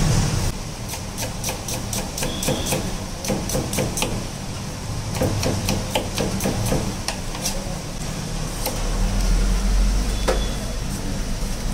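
Knife chopping vegetables on a wooden board: quick, irregular knocks of the blade against the wood, several a second. A low rumble sets in near the end as the chopping stops.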